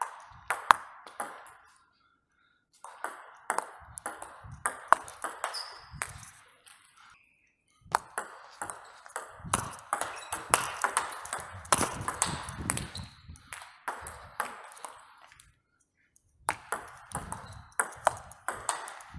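Table tennis rallies: the celluloid-style plastic ball clicking off the rackets' rubbers and bouncing on the table in quick runs of sharp pings, broken by a few short pauses between points. One racket is faced with Haitian Hippocampus Speed rubber.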